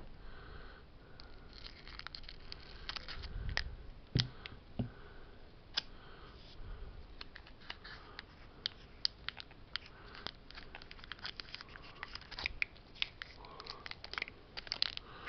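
Scissors snipping open a Pokémon booster pack, then the foil wrapper crinkling and crackling in a steady run of small clicks as the pack and cards are handled, with a couple of soft knocks about four seconds in.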